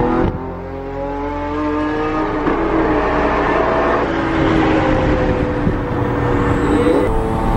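Lamborghini Aventador's V12 engine heard from inside the cabin while driving at highway speed. The pitch climbs with a shift about two and a half seconds in and again around four seconds, then holds a steadier, slightly falling note and rises again near the end, over steady road noise.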